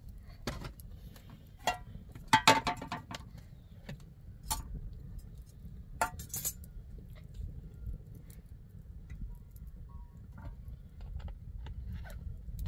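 Scattered clicks and clinks of cooking things being handled beside an open fire: a plastic cooking-oil bottle opened and poured, and metal utensils knocked. The loudest is a ringing clink about two and a half seconds in, with a sharp click about six seconds in, all over a low steady rumble.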